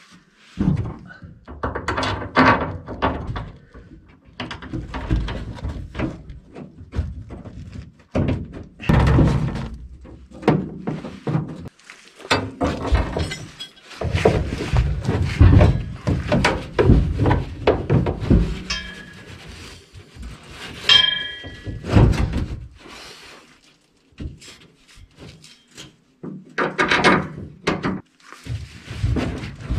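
Irregular thunks and knocks of hand work under a pickup truck, as tools and fittings bump against the underside while the fuel tank's lines and wiring are connected, with a brief ring near the middle.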